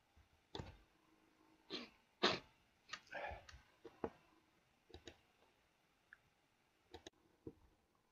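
Faint, irregular clicks of a computer mouse and keyboard, about ten separate taps with the loudest a little over two seconds in.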